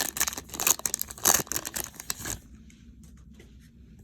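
A foil baseball-card pack wrapper being torn open and crinkled in the hands, a dense crackle that stops about two and a half seconds in, leaving only faint ticks of cards being handled.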